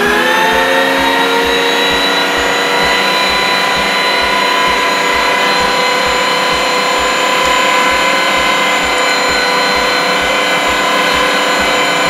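Electric meat grinder running with a steady motor whine, grinding boiled honey mushrooms through a coarse plate. Its pitch finishes rising within the first second after switch-on and then holds even.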